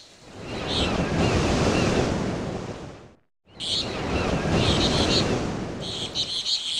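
Nature ambience of ocean surf: a rushing wash of waves that swells and fades, with small birds chirping over it. The sound cuts out completely for a moment about three seconds in, then comes back.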